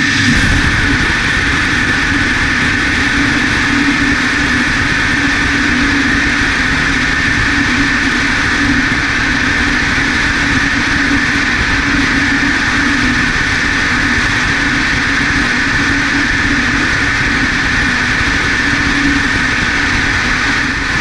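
Aerojet Rocketdyne RL10 liquid-hydrogen/liquid-oxygen rocket engine firing on a test stand: a loud, steady roar with a deep drone under a hissing rush.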